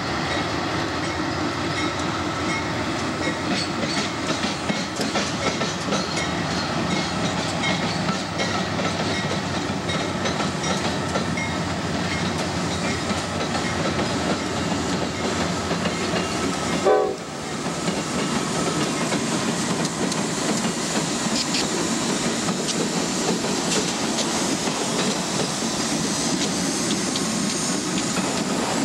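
A lead set of CSX GE diesel locomotives (AC6000CW, CW44AC and CW40-8) running past close by, engines and wheels on the rails making a steady, loud noise. There is one short break in the sound a little past halfway.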